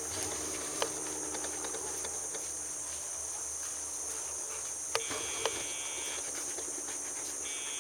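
Steady high-pitched chorus of insects such as crickets, with two shorter buzzes about five seconds in and near the end, and a few faint clicks.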